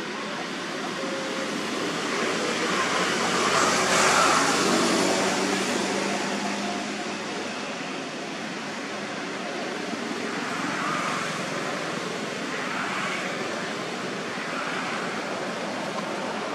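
Steady outdoor background noise that swells to its loudest about four seconds in and then eases off, with a few faint higher sounds later on.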